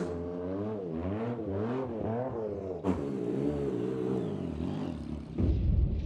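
Stunt streetbike's engine heard from a distance, its revs rising and falling again and again as the throttle is worked, with a short sharp click near the middle. About five seconds in it gives way abruptly to the bike's deep rumble up close.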